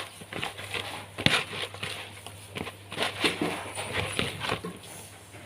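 Irregular clicks and knocks from handling the bait bowl as butter is added to soaked catfish-feed bait, with one sharper knock about a second in.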